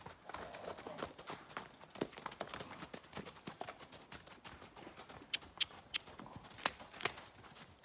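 Hoofbeats of two young horses trotting over snow-covered ground: an uneven patter of hoof strikes, with a few sharper, louder clicks about five to seven seconds in.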